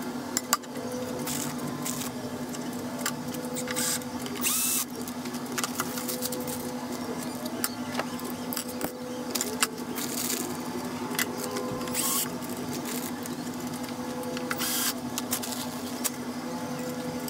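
Steel rails and parts being handled on a steel machine bed, with scattered clinks, scrapes and the rustle of plastic parts bags, over a steady low hum.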